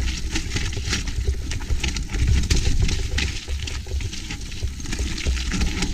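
Mountain bike rolling over a rocky trail, its tyres and frame rattling with a quick run of small knocks and clicks. Gusty wind buffets the camera microphone with a low, uneven rumble.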